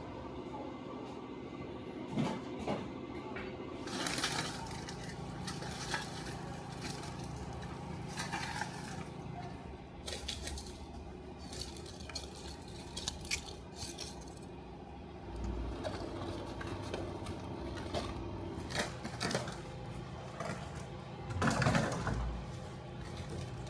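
Steel pieces clinking and being handled, in scattered knocks with a louder scrape or rattle about 21 seconds in, over a steady low hum.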